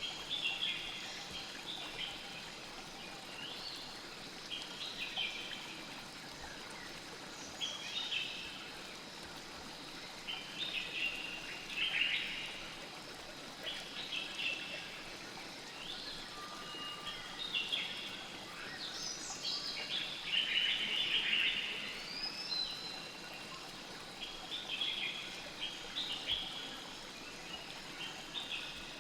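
A river flowing steadily, with birds chirping and singing in short phrases every second or two over it.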